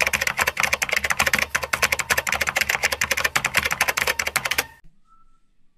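Rapid typing on a computer keyboard, a fast run of key clicks that stops abruptly near the end.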